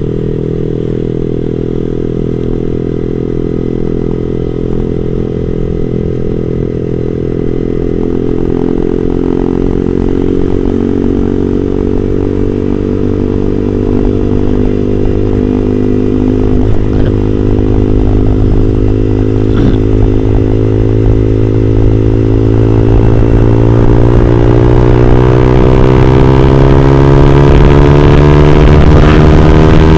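Yamaha R15 V3's single-cylinder engine through an R9 GP SS aftermarket exhaust with a deep, bassy note, pulling steadily as the bike accelerates, the pitch and loudness climbing gradually.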